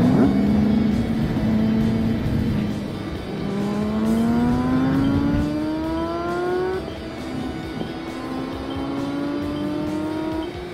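Motor vehicle accelerating, its pitch rising steadily, dropping once as if shifting gear, then rising again more slowly.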